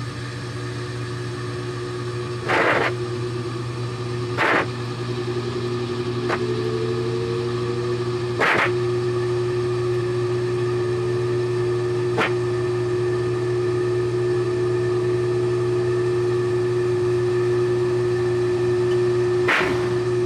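Top-load washing machine spinning a load of golf balls: a steady motor hum that slowly grows louder, broken by about five sharp knocks as balls strike the drum.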